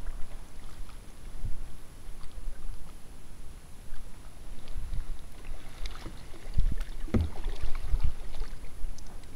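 Kayak paddling: paddle strokes splashing and dripping in calm lake water, with occasional knocks, over a low rumble. The splashes and knocks come thickest about six to eight seconds in.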